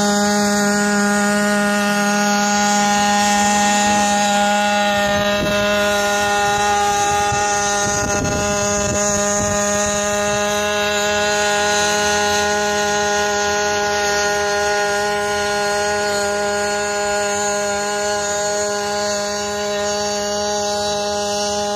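Combustion-engine hybrid quadcopter flying, its on-board engine running at a steady, unchanging pitch together with the whir of its rotors. The sound eases off a little near the end.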